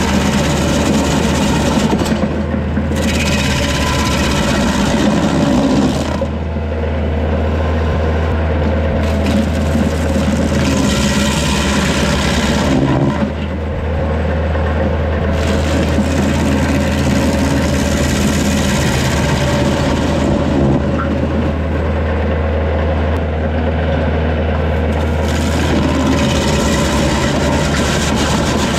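PTO-driven stump grinder wheel grinding into red pine stumps in repeated harsh bouts, each lasting a few seconds, with short easier spells between. Under it the tractor's diesel engine runs steadily under load.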